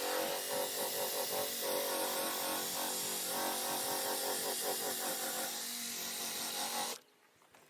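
Electric polisher buffing a plastic headlight lens with polishing compound. It runs steadily with a slightly rhythmic rubbing, then is switched off and stops abruptly about seven seconds in.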